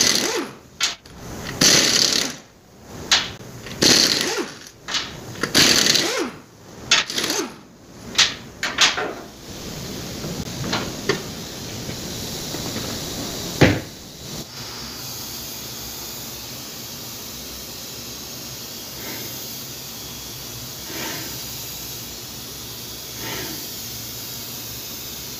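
Impact wrench rattling in about ten short bursts as the lug nuts come off a 2008 Nissan Altima's rear wheel. From about halfway on, a steady drone from the bare rear hub, captioned as noise from the wheel bearing: the rear wheel bearing is the source of the customer's speed-related noise.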